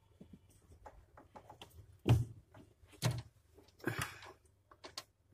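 Clicks and knocks of a plastic thermostat bracket being handled and pressed into place in a refrigerator's freezer compartment: small scattered clicks, with three louder knocks about two, three and four seconds in.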